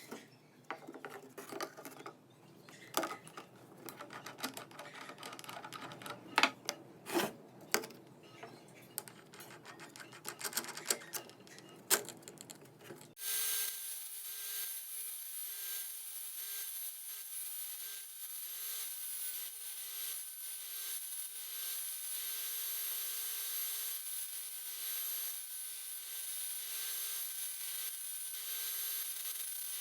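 Irregular clicks and knocks of metal parts and tools being handled on the aluminium-alloy wrench. About thirteen seconds in, this gives way abruptly to a steady abrasive rubbing on the metal, as in sanding or filing it clean.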